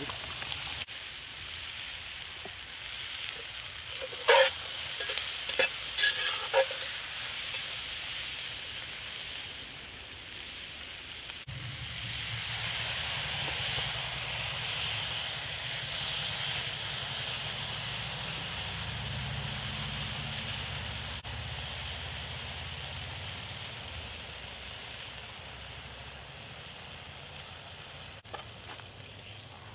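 Onions, mushrooms and root vegetables sizzling in oil in a cast-iron Dutch oven, with a few sharp knocks about four to six seconds in. From about halfway through, a deeper bubbling joins the sizzle as broth, roux and beer simmer in the pot.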